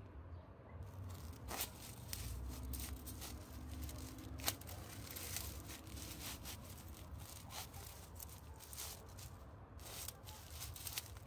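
Sheer nylon sock scraping and snagging on rough rock as the foot rubs over it: a run of short rasping scrapes, one sharper than the rest about halfway through, over a low rumble.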